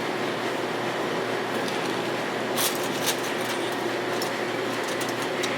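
Steady machine hum with a hiss, like an air conditioner or fan running, with two brief clicks near the middle.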